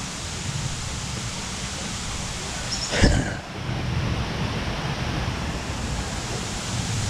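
Steady rushing, hissing outdoor noise with uneven low thumps, like wet-weather ambience picked up on a walking body-worn camera. About three seconds in there is one brief, louder knock and rustle.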